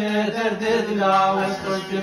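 A man singing a drawn-out, wavering folk melody over a steady held low note, with acoustic guitar accompaniment.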